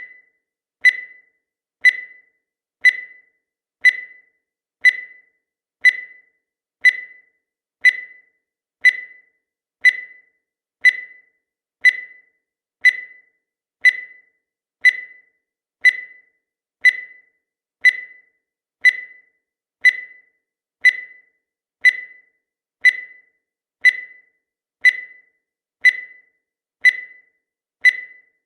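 Countdown timer sound effect: a short, high-pitched tick that sounds once every second, each one dying away quickly.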